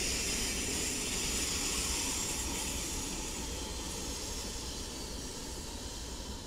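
Pair of diesel switcher locomotives rolling slowly past: a steady hiss over a low engine rumble, slowly getting quieter.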